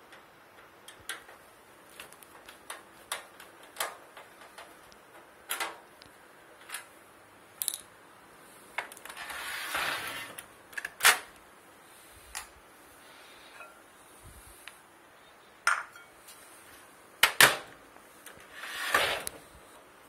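Metal clicks, taps and a few sharp knocks from a screwdriver undoing the screws of a microwave oven's sheet-metal outer cover, with two longer scraping sounds, about halfway and near the end.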